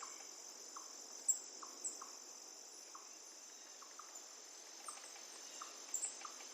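Faint rainforest insect chorus: a steady high-pitched cricket-like trill, with short chirps every half second to a second and a few quick higher chirps over it.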